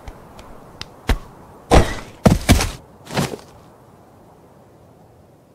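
Four dull thuds in quick succession, a little under two seconds in, with a few faint clicks before them.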